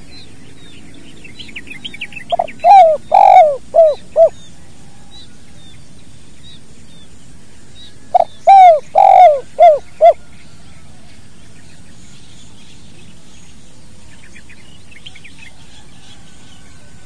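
Spotted dove (tekukur) cooing two phrases about six seconds apart, each a couple of long coos followed by two short clipped 'kuk' notes, the 'kuk dua' call style. Small birds chirp faintly in the background.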